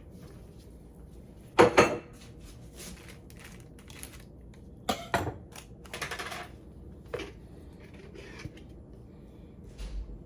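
Dishes and utensils being handled in a kitchen: a series of irregular clinks and clatters, loudest about one and a half seconds in, with another cluster around five to six seconds in.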